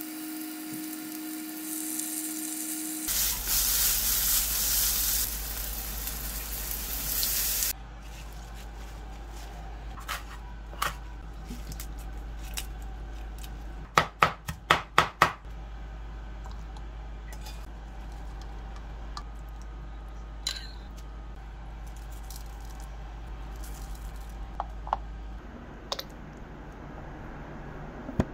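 Oil sizzling around garlic in a stainless steel frying pan, louder after about three seconds and stopping abruptly. About halfway through comes a quick run of about six knife chops through herbs on a wooden cutting board, with a few scattered light clicks and knocks around it.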